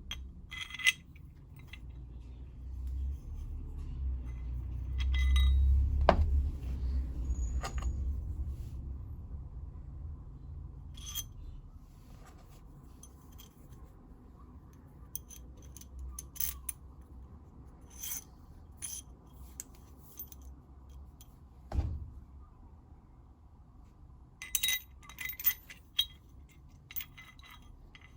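Metal parts and tools clinking, tapping and scraping against one another in scattered sharp clicks. A low rumble swells for a few seconds in the first third, and there are two heavier knocks, at about six seconds and about twenty-two seconds.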